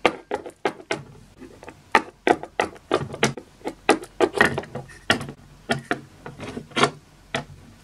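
Light, uneven plastic clicks and taps, about three a second, as a Littlest Pet Shop toy figure is hopped by hand across a hard surface and a plastic playset.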